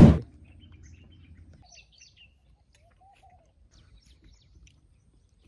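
A short loud burst of noise right at the start, then faint, scattered bird chirps and calls.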